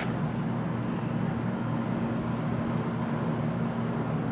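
Steady low hum and rushing air of a commercial kitchen's ventilation, running evenly with no distinct events.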